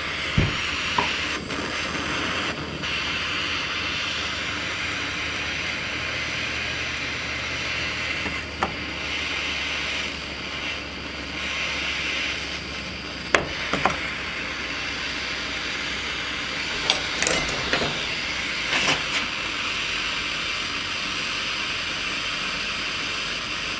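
Gas burner flame hissing steadily while heating the joint for silver soldering, with a few light clicks and taps scattered through.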